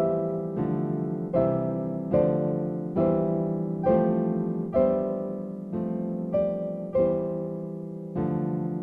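Background music: a slow piano piece, with a chord struck about every second and each one fading away.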